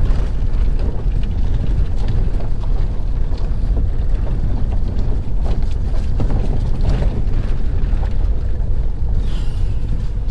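Low, steady rumble inside the cabin of a Mahindra XUV500 driving slowly over a rough, rocky dirt track, with scattered knocks and rattles as the tyres and suspension take the bumps.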